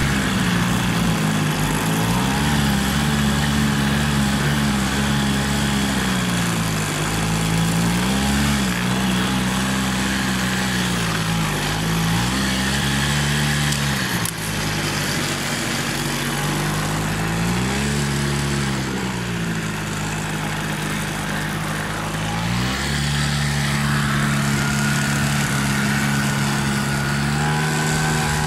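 Quad bike engine running while being ridden, its pitch rising and falling every few seconds with the throttle and holding steady near the end, over a constant rush of wind noise.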